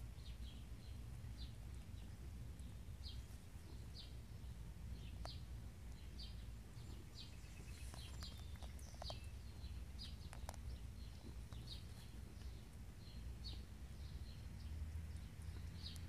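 A small bird chirping over and over, short high chirps about one to two a second, over a steady low outdoor rumble. A few faint clicks about halfway through, as the cat chews the bird.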